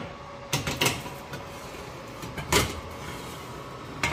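Metal baking tray lined with aluminium foil being slid into an oven and knocking against the oven rack: several sharp clatters, the loudest about two and a half seconds in, over a faint steady hum.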